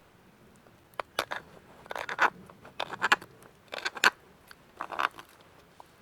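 A carving knife scraping out the bowl of a wooden kuksa cup, about five or six short strokes roughly once a second, as the hollow is widened a little at a time.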